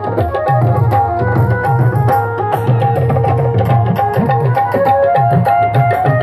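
Tabla and harmonium playing an instrumental passage with no voice. The harmonium holds chords over a steady tabla rhythm, and from about four seconds in the bass drum's strokes bend upward in pitch.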